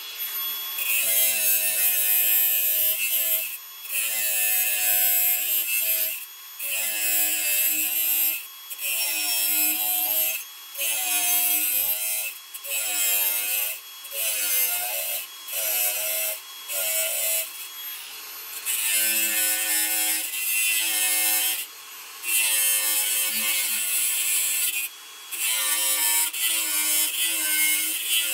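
Angle grinder with a thin cut-off disc cutting slots into a steel saw blade: a motor whine that bends in pitch as the disc bites, over a hissing grind. It comes in repeated cuts of one to three seconds, broken by short gaps.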